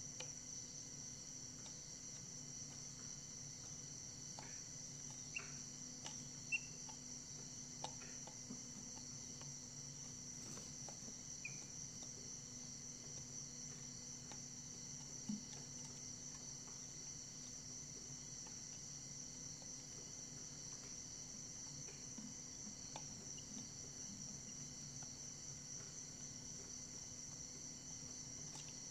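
Faint steady chorus of crickets, with a few soft clicks and taps scattered through.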